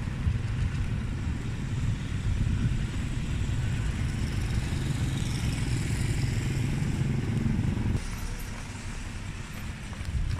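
Street traffic: vehicle engines and motorcycles running with a low rumble, which eases about eight seconds in.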